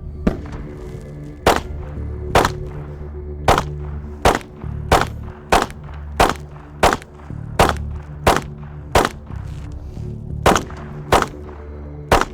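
Glock 43X 9mm pistol firing a string of about fifteen shots, roughly one every two-thirds of a second, with a brief pause near the end. Background music runs underneath.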